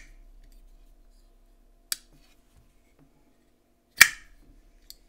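TwoSun TS377 flipper knife being worked open and shut on its freshly cleaned and oiled bearing pivot: sharp metallic clicks as the blade snaps into place. There is a smaller click about two seconds in, a loud ringing one about four seconds in, and a faint one near the end.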